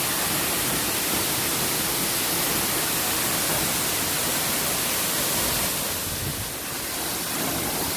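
Waterfall pouring: a steady rush of falling water, dipping slightly in level about six seconds in.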